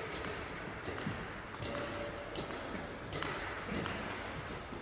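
Badminton hall background with scattered sharp knocks and taps echoing in the large hall, from play on the courts.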